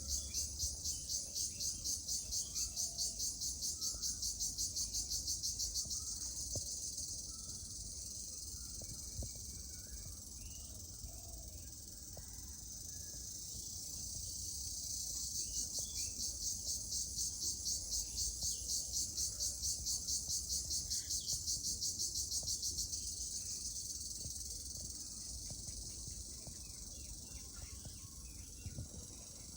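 Jhijhi poka (cricket) chirring: a high, rapidly pulsing trill that throbs a few times a second. It dies down about eight seconds in, swells back about fourteen seconds in, and fades again near the end.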